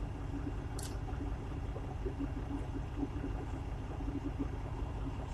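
Steady low rumble of a semi truck's diesel engine idling, heard inside the cab.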